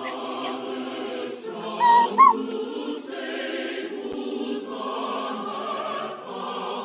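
Choral, opera-style singing with sustained chords. About two seconds in, two short, loud, high yelps cut through it.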